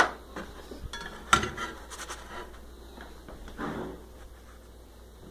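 A spatula knocking and scraping against a nonstick frying pan as a fried sandwich is lifted out and set down, with a sharp knock at the start and a louder one about a second in, then quieter scrapes and ticks.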